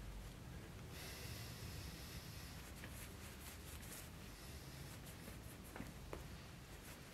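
Faint rustling of a cloth rag and light taps as metal sword guard and pommel pieces are handled and set down on it, with two small clicks about six seconds in.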